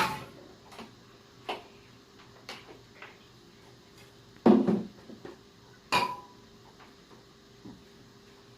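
Handling noise: hard objects being picked up, set down and knocked together in a series of separate clicks and knocks. The loudest knock is about four and a half seconds in, and a sharp click with a brief ring follows about six seconds in.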